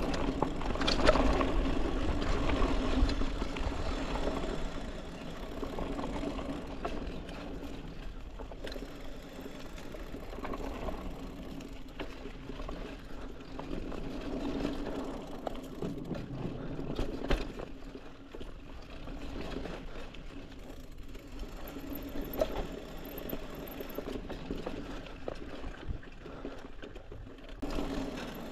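Trek Marlin 6 hardtail mountain bike rolling along a dirt singletrack: steady tyre and drivetrain noise with rattles and knocks from the bike over bumps, loudest in the first few seconds.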